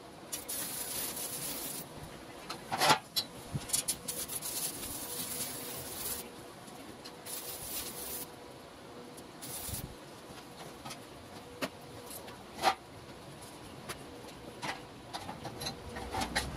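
Stick-welding arc crackling and hissing in several short bursts as joints of a steel tube frame are welded, with a couple of sharp metal knocks in between.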